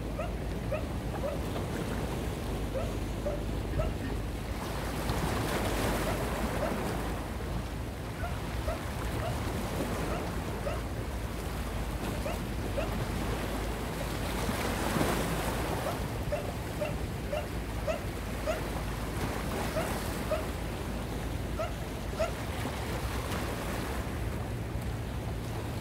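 Small sea waves washing against the rocks, with wind on the microphone; the wash swells twice, about five seconds in and again around fifteen seconds in. Runs of faint short chirps repeat through it.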